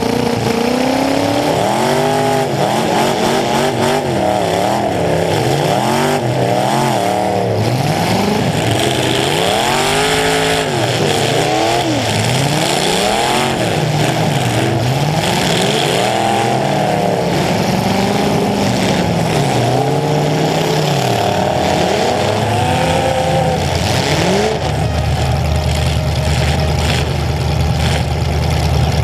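Demolition derby car's engine, heard from inside the car, revving up and falling back again and again as it accelerates and backs off, then settling to a steady idle near the end.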